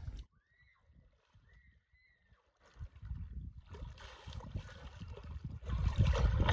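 Hooked paddlefish thrashing at the surface of the river and splashing, loudest in the last second or so, with wind rumbling on the microphone. The first couple of seconds are nearly silent apart from two faint whistles.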